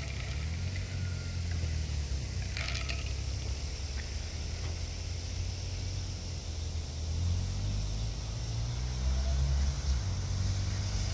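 Honda Monkey mini motorcycle's single-cylinder four-stroke engine running as it is ridden, a low engine note that rises and falls a little with the throttle.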